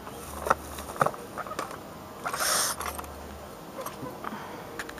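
Hands working fishing tackle close to the microphone: scattered small clicks and a brief rustle about halfway through.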